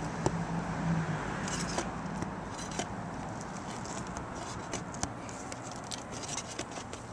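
Roofing nails being pried up from under an architectural asphalt shingle: scraping and scattered light clicks of the tool against nails and shingle. A low hum fades out about a second in.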